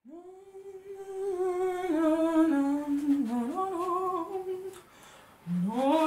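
A woman humming a wordless tune, unaccompanied, in a small room. She holds and steps between notes, breaks off briefly about five seconds in, and picks up again on a rising note near the end.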